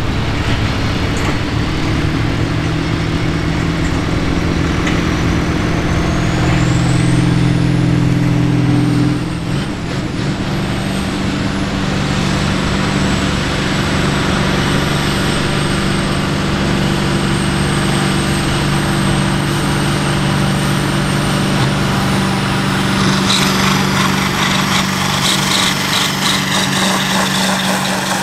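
A farm stock diesel pulling tractor's engine running hard at steady high revs during a sled pull. A high whistle rises about five seconds in, and the engine note shifts about nine seconds in. A crackling rattle joins in near the end.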